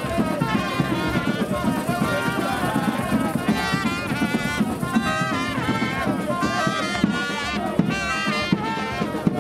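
Brass band music playing, with trumpet- and trombone-like horns over a steady beat.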